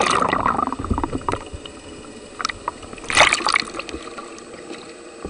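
Water splashing and sloshing around a kayak as it rolls up, with a loud splash right at the start and another about three seconds in, and dripping and trickling between.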